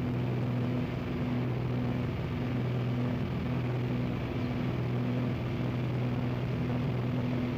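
Steady aircraft engine drone with a low hum and a regular throb about twice a second, over a wash of airflow noise.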